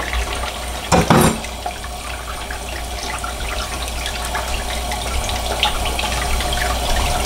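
Kitchen faucet running steadily into the sink, the stream splashing over a squirrel carcass rinsed by hand under it. A brief loud knock comes about a second in.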